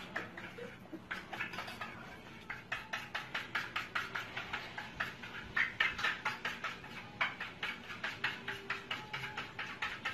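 Rapid light taps on a hard surface, several a second, starting about a second in and running on with small pauses.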